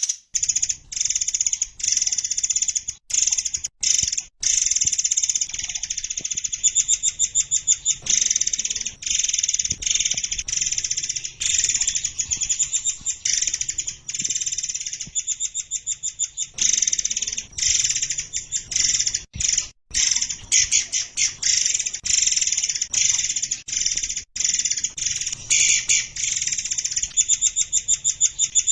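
Mixed songbird recording layering murai air, cililin, Eurasian tree sparrow and canary songs. It is a continuous run of high-pitched chirps and fast trills, broken now and then by brief abrupt gaps.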